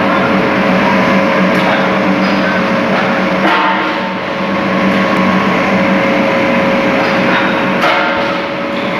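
Ingot casting machine line and its furnace running: a loud, steady industrial din with an even hum, and a couple of brief metallic knocks about a third of the way in and near the end.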